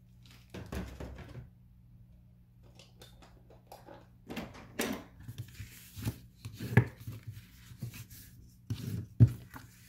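Black cardstock being handled, folded along its score lines and creased with a bone folder: scattered short rustles and scrapes, with a few sharper knocks against the wooden tabletop, the loudest two near the end. A faint steady low hum runs underneath.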